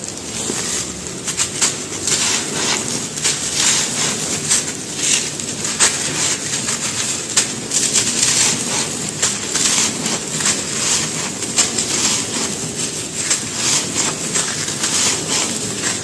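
Dry mud bricks crumbling: a dense, irregular run of small gritty crunches and crackles.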